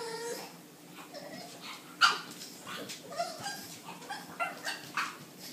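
Pug puppy play-barking: a string of short, high yips and barks, the sharpest about two seconds in.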